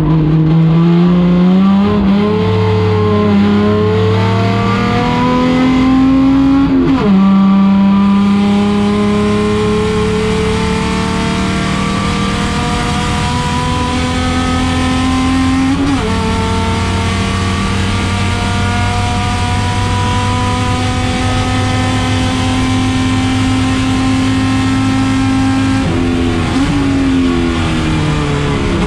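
Chevrolet Opala race car engine running hard under acceleration, its pitch climbing slowly through each gear and dropping sharply at shifts about 7 and 16 seconds in. Another sharp drop comes near the end, and the revs then fall away.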